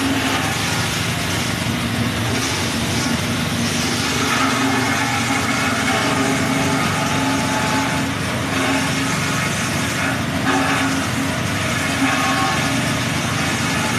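An engine running steadily, a constant, unchanging drone.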